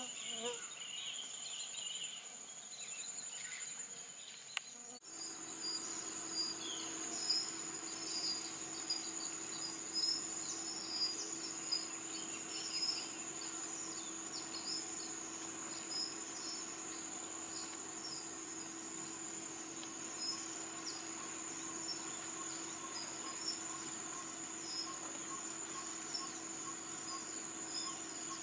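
Rainforest insects, a steady high-pitched drone with many short chirps over it. About five seconds in there is a click, and after it a low steady hum joins the chorus.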